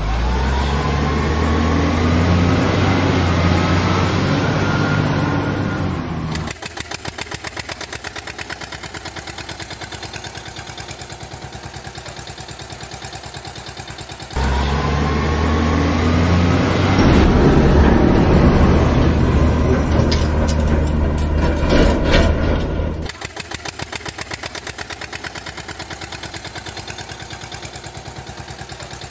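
Heavy diesel truck engine sound, switching abruptly back and forth between revving with a rising pitch and a steady, rhythmic chugging idle.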